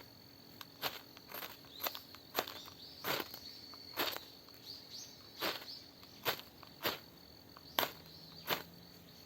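Faint sharp snaps, irregularly about once a second, over a steady high-pitched insect drone.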